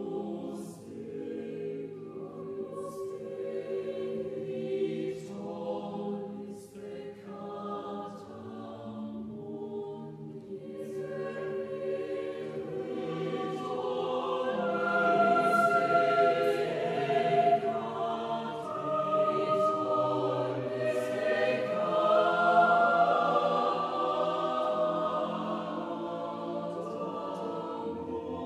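Mixed chamber choir singing a cappella in sustained chords, with crisp sibilant consonants. It swells to a fuller, louder passage in the middle, then eases back toward the end.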